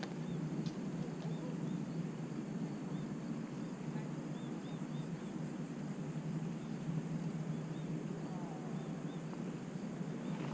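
Outdoor pond ambience: a steady low rumble with small birds chirping high and repeatedly throughout, and a couple of brief clicks.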